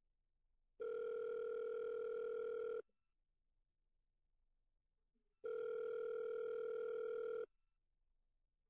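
Telephone ringing tone: two steady rings of about two seconds each, a couple of seconds apart, as a call rings through before it is answered.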